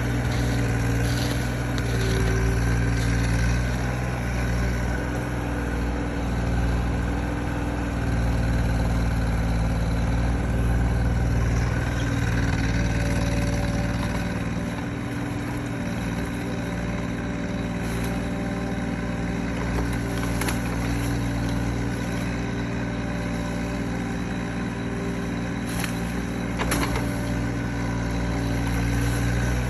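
Mini excavator engine running steadily. Its note eases a little about twelve seconds in, and a few sharp knocks come in the second half.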